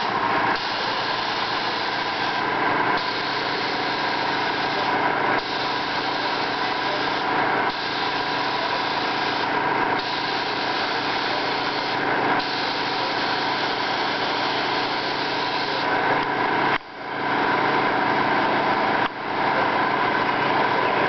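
Gravity-feed paint spray gun hissing as it sprays in passes, over a steady motor hum from the air supply. The hiss cuts out briefly every couple of seconds between passes, and the whole sound dips for a moment twice near the end.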